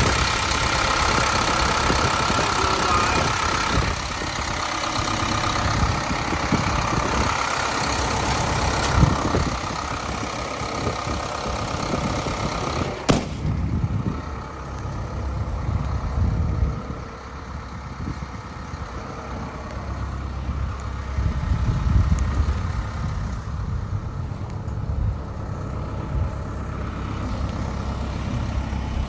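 Hino diesel engine of a Kobelco SK210LC-10 excavator running steadily, sounding healthy. About halfway through there is a sharp click, and after it the hiss drops away and the sound turns duller.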